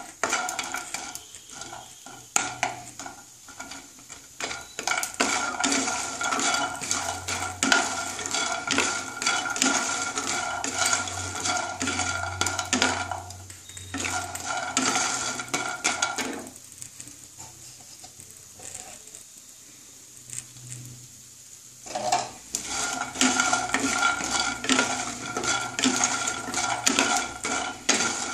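Wooden spatula stirring hard, sun-dried urad-dal dumplings (bori) around a nonstick kadai as they fry in a little mustard oil, with rapid knocks and scrapes of the dumplings and the spatula against the pan. The stirring stops for about five seconds past the middle, then resumes.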